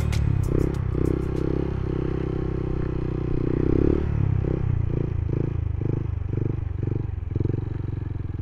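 Motorcycle engine running, its sound swelling and dropping in short regular pulses, about two a second, from about four seconds in.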